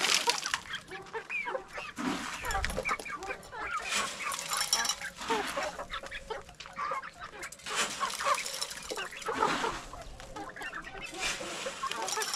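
Chickens clucking, many short calls overlapping.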